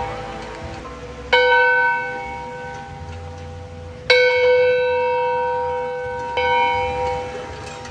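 A church bell tolling: three strokes a few seconds apart, each ringing on and slowly fading.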